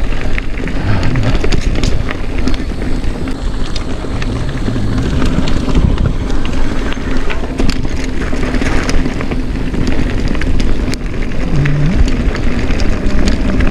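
Mountain bike riding along a dirt trail: steady wind buffeting the microphone, with tyre noise and frequent clicks and rattles from the bike over the bumps.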